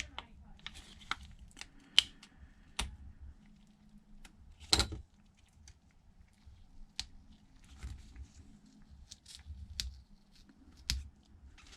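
Scattered small clicks and taps of hand tools against a tablet's parts during a repair, with light scraping between them; the sharpest tap comes about five seconds in.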